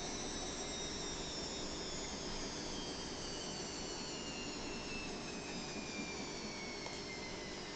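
A steady rushing noise with several high whining tones that slowly fall in pitch throughout, and a single faint click just after the end.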